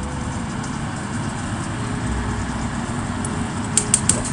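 A steady low rumbling hum, like a motor or fan running, with a quick run of three sharp clicks near the end.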